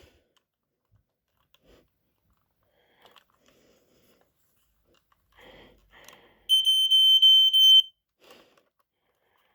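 Faint handling clicks and rustles, then about six and a half seconds in the 1982 Lifesaver 0981 smoke detector's horn sounds one steady high-pitched tone for about a second and a half and cuts off.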